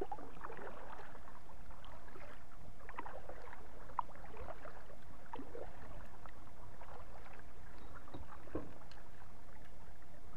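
Kayak paddle dipping into the water and dripping, an irregular run of small splashes as the kayak is paddled along.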